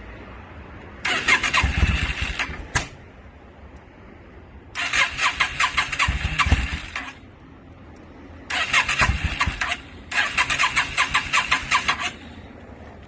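2002 Yamaha V-Star 650's air-cooled V-twin engine being cranked on the electric starter in four bursts of about two seconds each, turning over rapidly without catching and settling between attempts.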